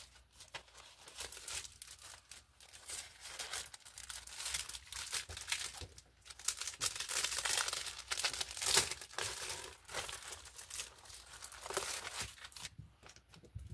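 Plastic mailer bag and thin plastic sheets crinkling and rustling as hands rummage through the package, irregular and loudest a little past the middle.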